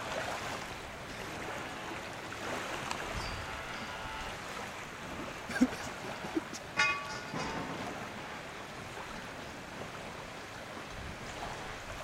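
Wind and choppy lake water lapping against a wooden jetty, with a couple of sharp knocks about five and a half seconds in and a short pitched hoot about seven seconds in.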